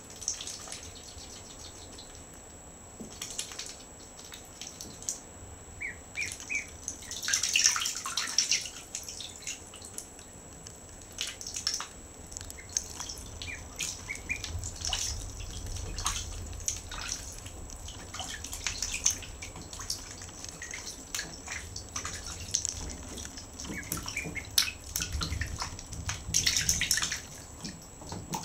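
Ducklings paddling and dabbling in shallow bathtub water: irregular small splashes and drips, with a few short peeps.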